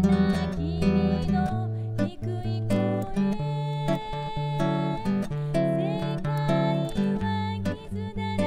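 Background music led by an acoustic guitar.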